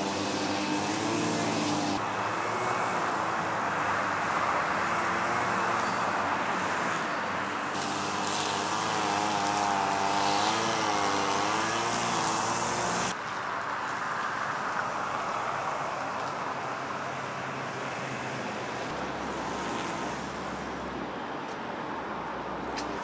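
Street traffic: motor vehicle engines running close by, their pitch wavering up and down over road noise. About 13 seconds in the sound drops abruptly to quieter, steadier traffic noise.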